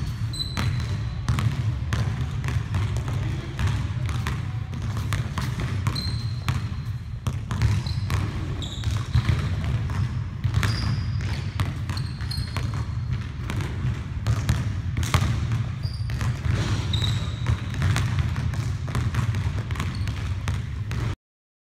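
Basketball bouncing repeatedly on a hardwood gym floor as it is dribbled and shot, with short high sneaker squeaks here and there over a steady low rumble.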